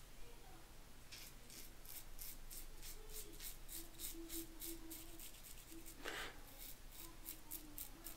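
Mulcuto slant safety razor scraping lathered stubble in short, crisp strokes, about three or four a second.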